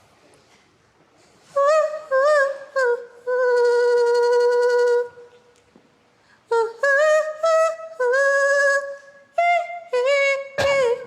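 A woman singing high, wordless notes: a few short warbling notes, a long held note, then, after a short pause, a run of quick short notes.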